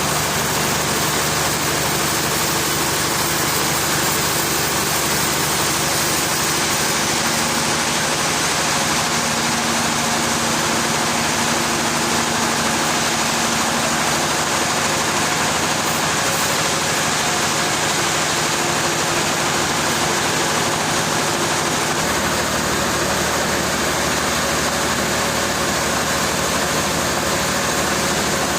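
Engine running steadily with a constant mechanical hum and noise; its low tone shifts about 22 seconds in.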